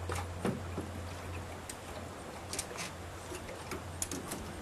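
Scattered light clicks and ticks from handling a steel tape measure while measuring a rowboat, over a steady low hum.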